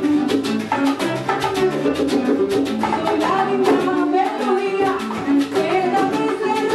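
Live Cuban-style band playing an upbeat number: a small guitar strumming over bongos and a cajón, with a voice singing over it in the middle and near the end.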